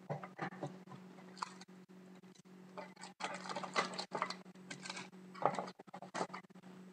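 Foil trading-card packs crinkling and a cardboard card box being handled, in irregular rustling bursts over a steady low hum.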